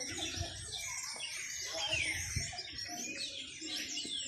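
Small birds chirping and twittering, many overlapping quick chirps and short falling whistles.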